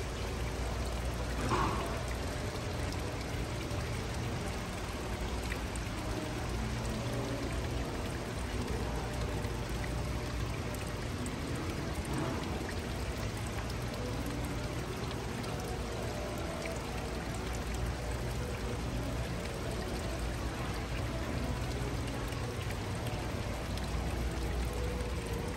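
Steady rush of running water, with faint music behind it.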